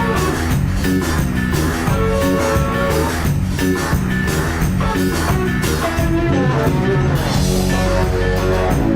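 Live rock band playing an instrumental passage with no vocals: guitar over drums with a steady beat.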